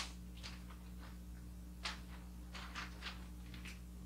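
Wrapping paper rustling and crinkling in short, scattered strokes as sheets are lifted and a box is laid on them, over a steady low hum.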